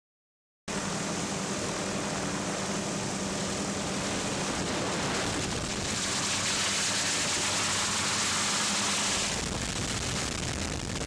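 Steady rushing engine and wind noise of the low-flying aircraft carrying the camera, with a steady low hum underneath; it cuts in abruptly just under a second in and swells slightly in the middle.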